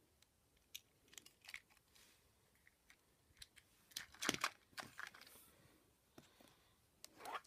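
Faint clicks and rustles of a plastic toy engine and tender being handled, with the loudest cluster about four seconds in.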